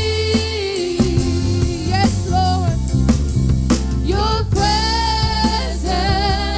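Live worship song: women's voices singing long, wavering notes over a band with drum kit and bass.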